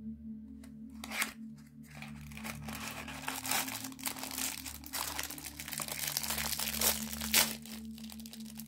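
Aluminium foil inner wrapper of an incense-stick box being pulled open and crumpled by hand: a dense crinkling and tearing with a few louder crunches, over a steady low hum.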